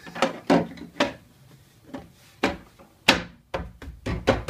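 Plastic rear bar on the base of an elliptical machine being pressed and knocked into place by hand: a string of sharp plastic knocks and snaps, the loudest about three seconds in, then several quick knocks near the end.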